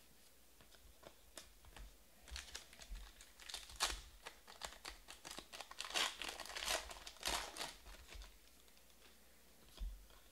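A foil trading-card pack being torn open by hand, its wrapper crinkling and crackling for about six seconds, starting a couple of seconds in.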